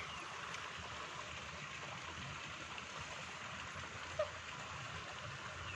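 Steady hiss of running water, with one short faint tone about four seconds in.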